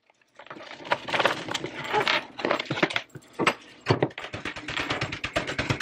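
Kitchen knife cutting cherry tomatoes on a cutting board: scattered slicing sounds and knocks of the blade on the board, then fast, even chopping strokes from about two-thirds of the way in.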